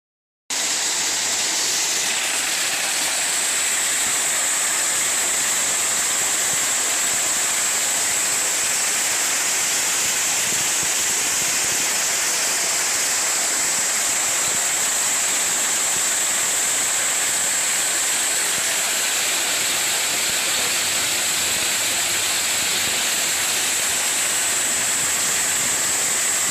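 Water jet spraying onto ore tumbling in a rotating trommel screen during wet screening: a steady rushing hiss that starts about half a second in.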